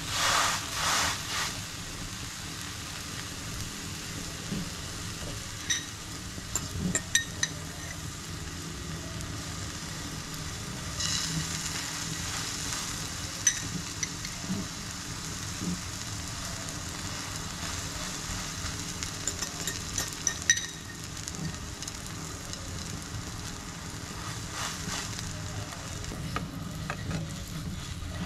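Buttered bread slices frying in a nonstick pan: a steady sizzle, loudest in the first second or so as the bread goes down, with a few sharp clicks scattered through.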